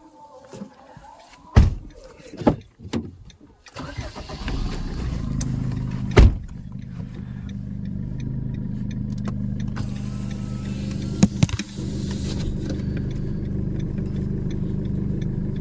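Car doors thumping shut, then the car's engine is started about four seconds in and runs at a steady idle. Another heavy door thump comes about two seconds after the start, and two knocks follow near the end.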